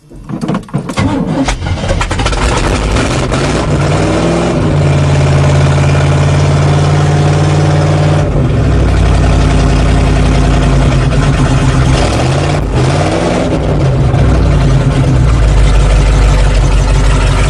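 A GMC 4x4 truck's carbureted engine cranks and catches within about a second, then runs, revving up and down a few times between stretches of steady fast running. It is a cold start after months sitting, on a dried-out carburettor primed with fuel poured in.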